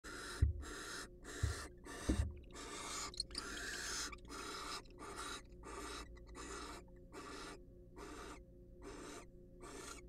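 Barn owl giving a steady series of short, raspy hissing calls, about two a second. Three low thumps come in the first two seconds.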